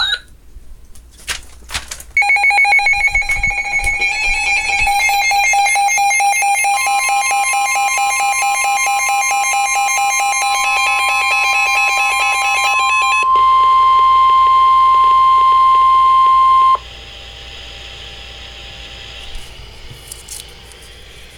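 Weather radio alert tones: fast electronic alarm beeping starts about two seconds in. The long, steady NOAA warning alarm tone joins it and holds for about ten seconds, then cuts off sharply, leaving faint hiss.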